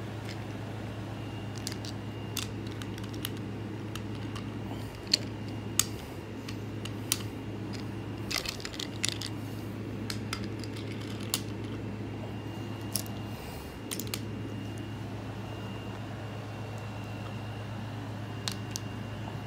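Scattered sharp clicks and clacks of wooden toy railway trucks and track, over a steady low hum.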